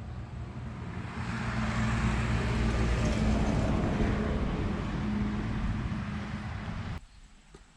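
A motor vehicle's engine running, growing louder to a peak, then easing off, as when a vehicle drives by; it cuts off abruptly about seven seconds in.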